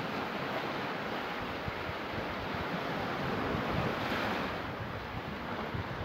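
Small sea waves washing in over a sand and shell beach, a steady surf hiss that swells a little midway, with wind buffeting the microphone.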